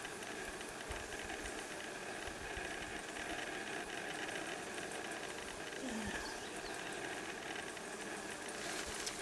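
Honey bees humming steadily around an open hive, with a brief falling buzz about six seconds in.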